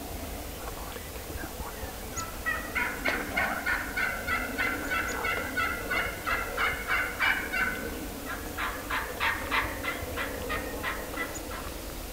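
Wild turkeys calling: a long run of rapid, evenly paced notes lasting about five seconds, then a second, shorter run.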